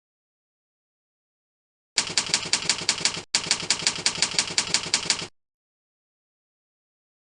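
Rapid, even clicking at about five clicks a second, in two stretches with a very short break between them, starting and stopping abruptly between silences.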